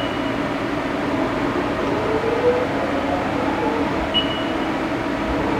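Steady mechanical hum of machinery running under power, with a few faint shifting tones and a short high beep about four seconds in.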